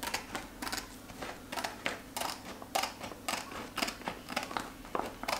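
Scissors snipping through a sheet of heat-transfer flex vinyl on its carrier, cutting around lettering in a run of short snips, about two a second.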